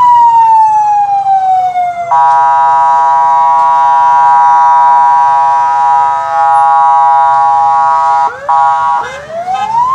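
Police vehicle siren. A falling wail gives way about two seconds in to a steady multi-tone horn blast. The blast holds for about six seconds with a brief break, and then the wail rises again near the end.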